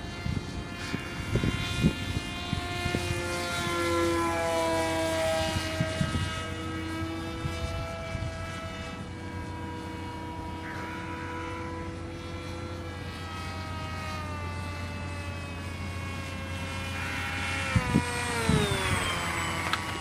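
Homemade radio-controlled F-22 model plane's motor and propeller whining in flight. The pitch shifts up and down and falls steeply near the end, with a few low thumps.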